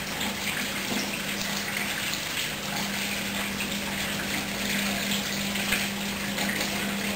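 Water rushing through a washing machine, over a steady electric hum.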